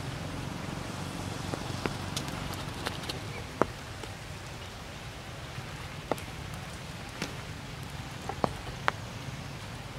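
Rain falling steadily through tree foliage, with scattered sharp drop impacts every second or so.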